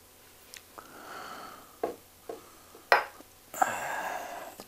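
Handling noise from a glass bourbon bottle as its cap is twisted open: a few clicks and knocks of glass, the sharpest about three seconds in, and a stretch of scraping from the cap near the end.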